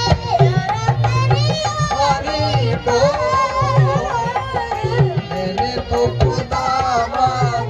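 Live Rajasthani folk music: a singer's wavering melody over a steady beat on hand drums.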